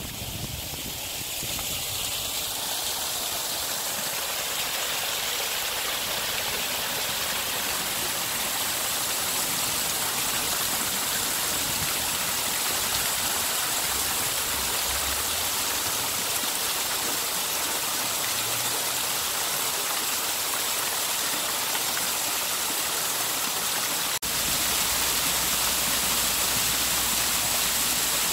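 A small waterfall spilling over rocks: steady rushing, splashing water that grows louder over the first couple of seconds. The sound breaks off for an instant near the end.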